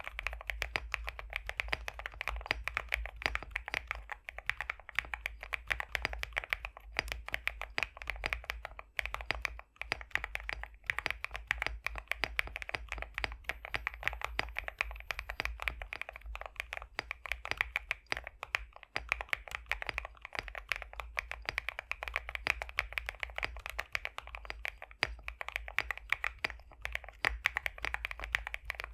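Continuous fast typing on an Epomaker x Createkeebs High65 v2 custom mechanical keyboard with pre-lubed BSUN X linear switches: a dense stream of creamy, thocky key strokes, broken by two brief pauses about a third and two thirds of the way in.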